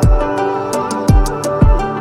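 Background music with a steady beat: pitched melodic notes over a kick drum about twice a second and light high ticks.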